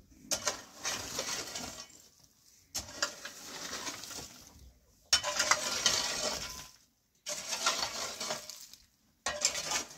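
Metal hoe blade dragged and scraped through dry dirt and loose stone rubble, stones clinking and grating against the blade. About five strokes, each a second or two long, with short pauses between them.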